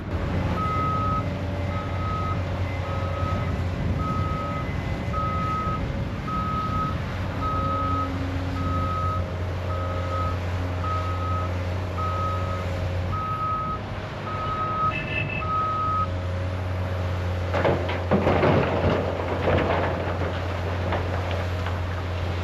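Heavy equipment's reverse alarm beeping steadily about once a second over its diesel engine running, as the machine backs up. About two-thirds of the way in the beeping stops and a burst of rattling, crunching rock follows.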